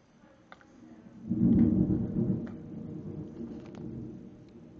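Thunder rumbling: a deep roll that builds about a second in, peaks sharply, then rolls on and slowly fades.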